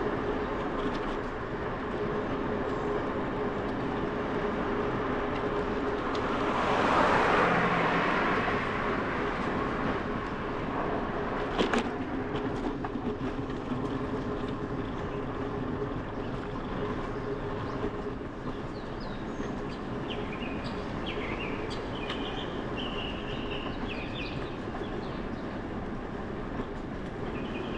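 Bicycle riding along pavement: a steady tyre hum and rumble with wind noise on a GoPro's microphone, swelling louder for a couple of seconds early on and a sharp click a little before halfway. Birds chirp in short calls through the second half.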